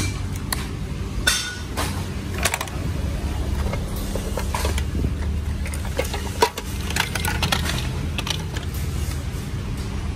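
Used power tools of metal and plastic knocking and clattering against each other as they are handled in a heap, in many short irregular clicks and knocks. A steady low rumble runs beneath.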